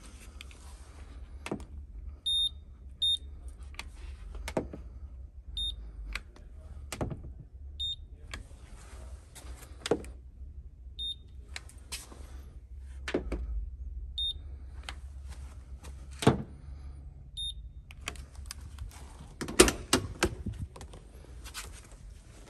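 Paint thickness gauge beeping: about seven short, identical high beeps at irregular intervals as readings are taken on the car's panels. Sharp clicks and knocks of handling come in between, the loudest near the middle and about two-thirds through, over a steady low hum.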